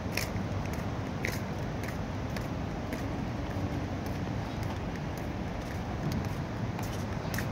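Footsteps on a paved walkway, sharp clicks at a walking pace of about two a second, over a steady low rumble.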